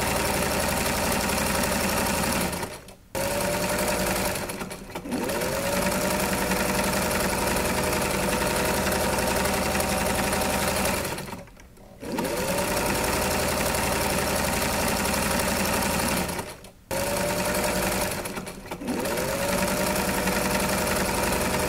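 Electric sewing machine running in long stretches. It stops briefly several times and spins back up with a rising whine after each stop, in a pattern that repeats about every 14 seconds.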